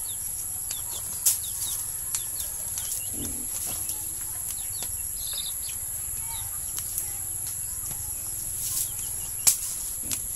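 Birds chirping in short falling notes over a steady high hiss, with two sharp knocks, one about a second in and one near the end.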